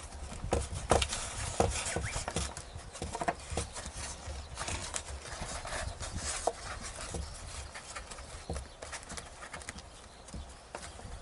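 Irregular taps, clicks and rustles of hands handling a foam RC airplane and its battery pack and plug on a wooden table.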